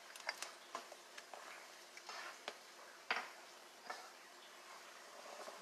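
A spoon stirring hot milk in a metal saucepan, with scattered light clicks and taps against the pot; the sharpest tap comes about three seconds in.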